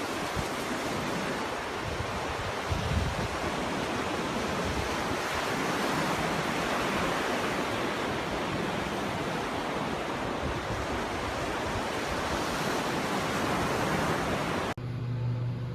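Steady, loud rushing noise like wind or surf that cuts off suddenly near the end, leaving a low steady hum.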